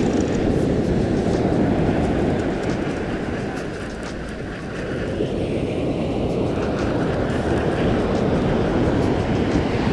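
Wind rumbling on the microphone over the wash of breaking surf, a dense low noise that eases briefly about four seconds in.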